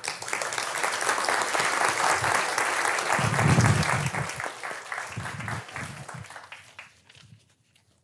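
Audience applauding, dying away over the last couple of seconds, with a few low thuds about halfway through.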